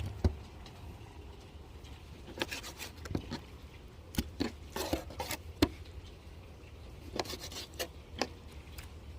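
Scattered light clicks, knocks and rubbing from handling horse clams and kitchen utensils while cleaning them, coming irregularly in small clusters over a faint low hum.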